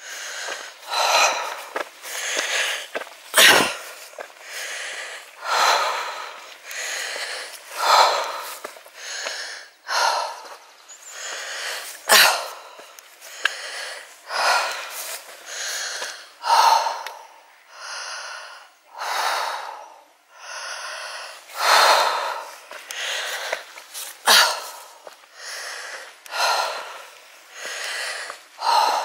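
A hiker's hard, heavy breathing as she climbs a steep slope with a full pack: a loud breath in or out about every second. A few sharp knocks fall in among the breaths, the strongest about three and a half seconds in.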